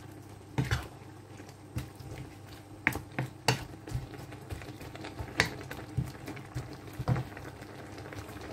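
Wooden spatula stirring a curry of pork bones and vegetables in a non-stick wok, with irregular knocks and scrapes against the pan. A low simmering sound of the broth runs underneath.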